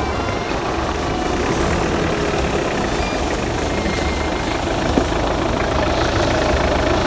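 Off-road 4x4 engines running at low speed: a Suzuki Jimny moving off past the camera and a Mitsubishi Pajero crawling up a rough trail toward it. The steady engine rumble grows a little louder near the end as the Pajero comes close.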